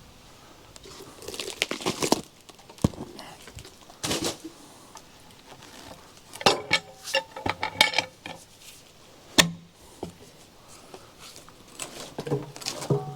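A cant hook and a log knocking and scraping against a Wood-Mizer sawmill's steel bed and log stops as the log is rolled: irregular clanks and knocks, a quick run of short ringing metallic clanks in the middle, one sharp knock a little later, and more clanks near the end.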